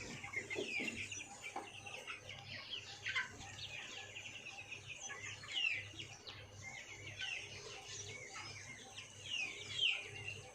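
A flock of 34-day-old Sonali chicks chirping and clucking: many short, overlapping calls that slide downward in pitch.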